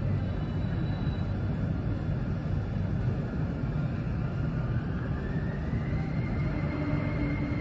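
MTR Tuen Ma line electric train pulling away from a station, with a steady low rumble of the train running. About five seconds in, the motor whine rises in pitch as the train gathers speed, then holds steady.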